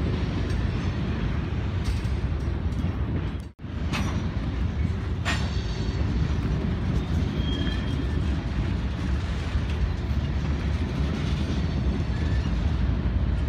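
Freight train of covered hopper cars and locomotives rolling past with a steady low rumble. The sound drops out abruptly for a moment about a quarter of the way in, and two sharp clicks follow within the next two seconds.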